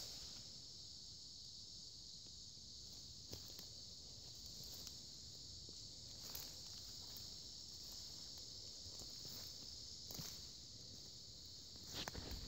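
Steady, faint high-pitched insect chorus, crickets or similar, with a few soft footsteps and a louder cluster of them near the end.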